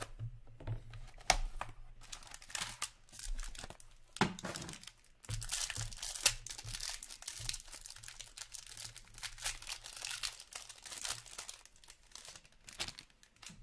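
Foil trading-card pack wrappers crinkling and tearing as packs are opened by hand, with a couple of sharp snaps along the way.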